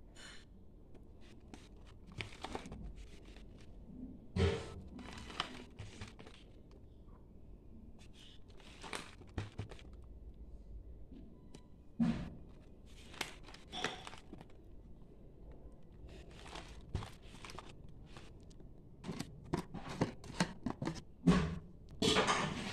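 Crinkling and tearing of the plastic packaging on a jar of wrapped candies being handled and opened, in irregular short crackles and rustles.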